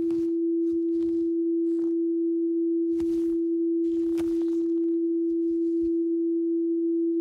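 A steady, pure electronic tone held at one pitch, a sustained drone in the film's sound design. A few faint, short noises come up under it about three and four seconds in.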